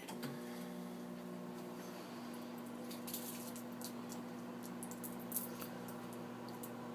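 Microwave oven starting with a click and then running with a steady mains hum, with faint scattered crackles and ticks from inside as the bar of soap heats.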